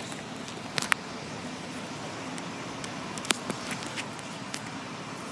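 Steady traffic and car-cabin noise at a standstill, with a few sharp clicks: two close together about a second in and a louder one a little past the middle.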